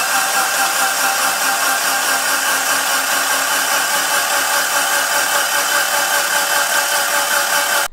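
Starter motor cranking a rebuilt Mitsubishi 4G63T stroker engine with its spark plugs out, a steady even whirring turnover with no firing, to build oil pressure before first start. It stops abruptly near the end.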